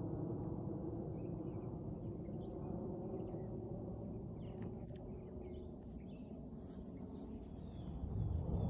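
Jet aircraft engine rumble, easing off through the middle and swelling again near the end, with small birds chirping.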